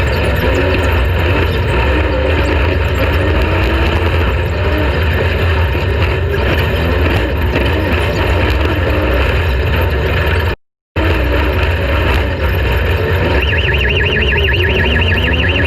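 Off-road race vehicle running hard, its engine note wavering, with a steady mechanical rattle over a heavy low rumble. The sound cuts out for a moment about two-thirds of the way through. Near the end a high, fast-warbling tone sounds along with it.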